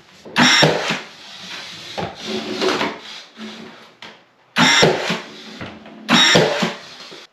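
Finishing nails being driven into quarter round trim: four loud, sharp, ringing strokes about a second and a half apart, the second one weaker.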